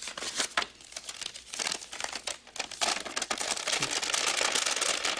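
Paper crinkling as a telegram envelope is opened and the telegram unfolded: a run of crisp crackles that thickens into a dense, continuous rustle about three seconds in.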